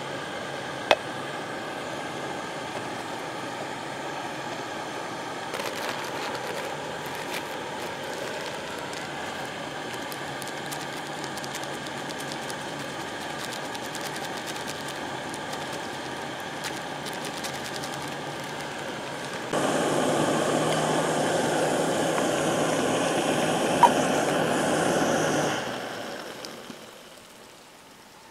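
Backpacking canister stove's burner hissing steadily under a pot of water, with crinkling and rustling in the middle as coffee grounds are poured from a bag. The hiss jumps louder about two-thirds of the way through, then dies away near the end as the stove is turned off.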